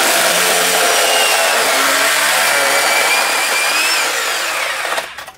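Corded electric chainsaw running and cutting into a thin metal tin: a loud, steady whine over harsh noise that stops about five seconds in.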